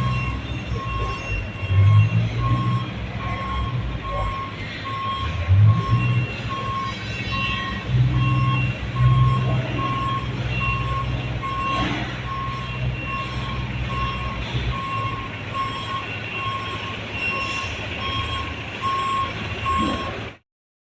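Boom lift working: its motion alarm beeps steadily about twice a second over the hum of its engine, which revs up briefly a few times. The sound cuts off near the end.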